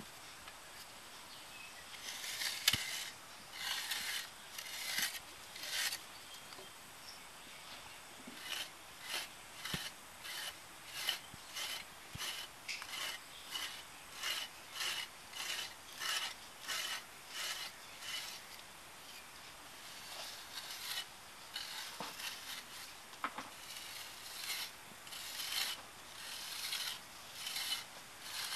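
Short, repeated scraping strokes of an excavation hand tool working the soil around a buried pottery jar. The strokes come at about one and a half a second for long stretches, with a short pause a little past the middle.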